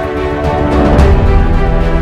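Background music with sustained tones, heavy bass and percussion hits.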